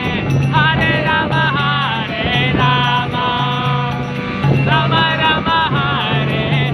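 Devotional kirtan chanting: voices singing a melody over sustained instrument tones, a steady low beat and jingling small hand cymbals.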